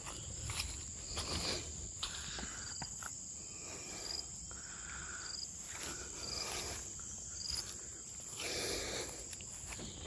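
Steady high-pitched insect drone, with short chirps repeating about once a second and a few light rustles or knocks.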